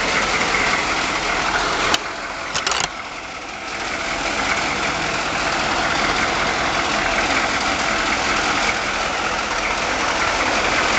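Chevy 6.2-litre diesel V8 idling steadily, heard from inside the van's cab. There is a sharp click about two seconds in, with a few short clicks just after.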